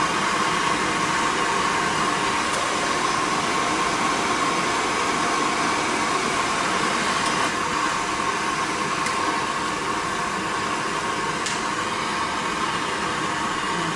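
Steady machine-like whooshing hiss with a constant mid-pitched tone, unchanged throughout, with a few faint clicks.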